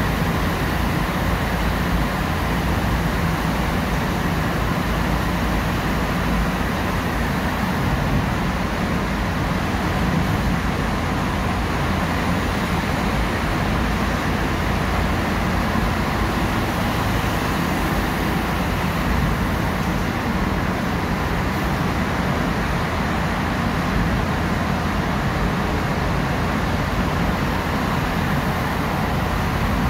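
Steady road noise of a car driving through a road tunnel, heard from inside the cabin: tyre and engine noise with a constant low hum.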